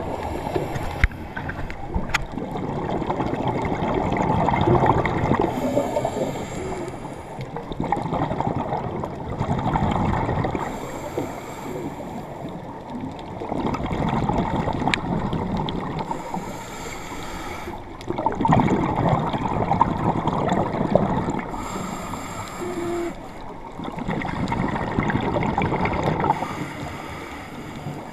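Scuba diver breathing through a regulator underwater: a short hissing inhale alternates with a longer bubbling exhale, in a steady cycle about every five seconds.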